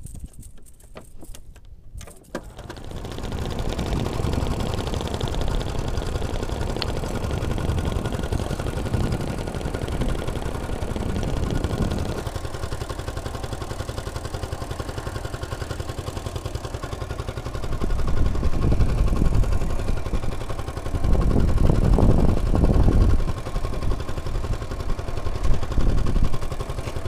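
Small outboard engine of an outrigger fishing boat running steadily under way. It comes up about two seconds in, and in the second half there are surges of louder low rumble.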